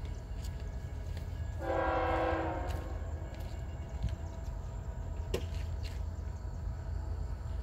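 Distant freight locomotive horn sounding one blast of about a second, a chord of several tones, over a steady low rumble.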